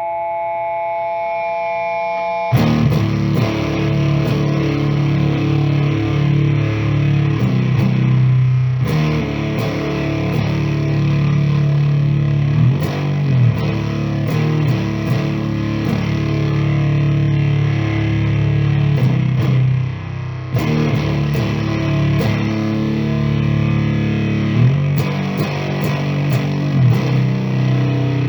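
Electric guitar played through a point-to-point fuzz pedal, heavily distorted. A held note swells up first, then thick fuzzed chords ring out, with short pauses about a third and two thirds of the way through.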